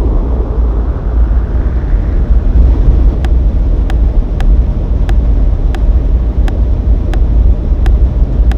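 A loud, steady low rumble. From about three seconds in, sharp clicks repeat roughly every two-thirds of a second.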